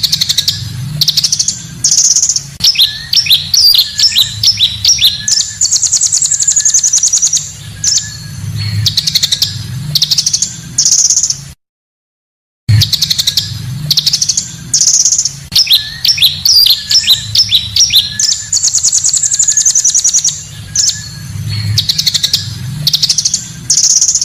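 Recorded song of a pancawarna bird: bright high chirps, quick trills and falling whistled sweeps, played as a loop of about 11 seconds that repeats after a one-second break. A low hum runs underneath. It is the kind of call recording used to lure wild birds and as a tutor song for caged birds.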